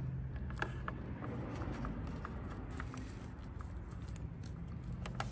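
Handling noise and light plastic clicks as a three-prong charger plug is pushed into an extension cord's socket, with two sharper clicks near the end, over a steady low hum.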